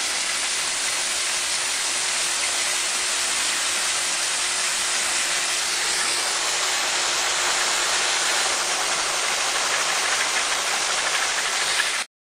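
Lego Technic air-driven piston engine running: a steady, loud hiss of rushing air with a faint steady hum beneath it, cut off suddenly near the end.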